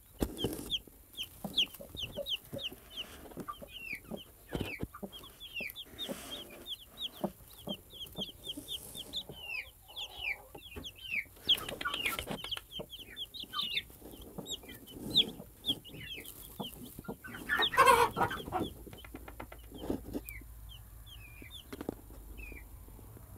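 Newly hatched Cochin chicks peeping continuously: a rapid stream of short, high, falling cheeps, with clucking from the brooding hen. Nest straw rustles and knocks as a hand moves among them, and there is one loud burst near the end.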